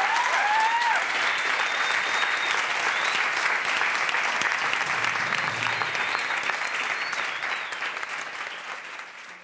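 Audience applauding, with a few voices whooping in the first second, the clapping dying away near the end.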